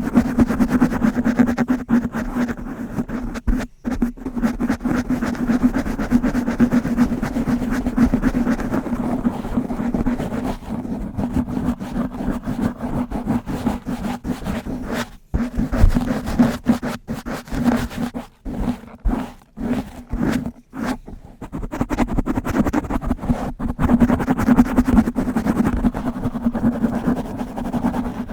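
A brush rubbed fast and hard over a microphone: a dense run of rapid scratchy strokes over a steady low hum, stopping briefly a few times in the middle.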